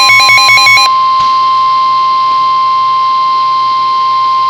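Emergency Alert System tones: a chattering digital data burst that cuts off about a second in, over the steady, high single-pitched NOAA Weather Radio warning alarm tone (about 1050 Hz) announcing a new weather warning.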